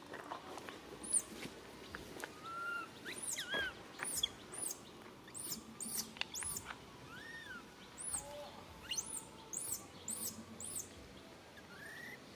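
Baby monkey squeaking over and over: about a dozen short, very high-pitched calls that rise and fall, mixed with a few lower whining calls.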